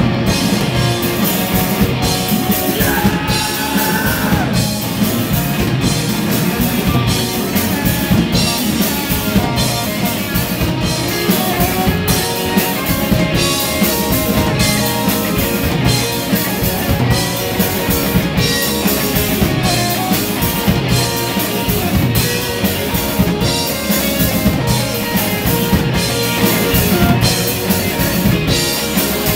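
Live rock band playing: electric guitar with a drum kit keeping a steady beat, a cymbal hit about every three-quarters of a second. The drums and cymbals come in right at the start.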